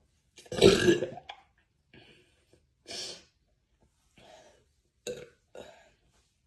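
A woman's loud, deep burp about half a second in, lasting nearly a second, followed by a few shorter, quieter sounds.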